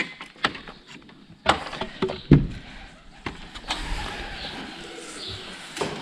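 A wooden plank barn door being unbolted and opened: sharp metal clacks of the slide bolt and wooden knocks, with one heavy thump a little over two seconds in.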